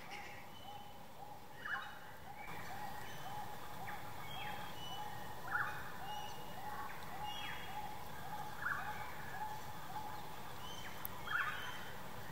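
Rainforest wildlife calling: a short note repeated steadily about two or three times a second, with a few louder, quick downward-sweeping bird calls, the loudest about five and a half seconds in and near the end.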